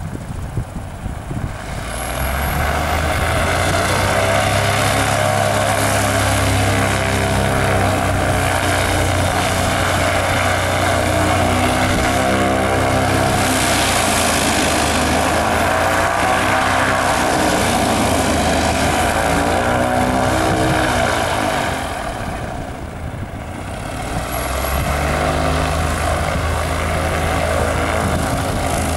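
Socata TB-20 Trinidad's single six-cylinder Lycoming piston engine and propeller at full takeoff power. It comes up about two seconds in, runs steady and loud, dips for a couple of seconds near the end, then comes back.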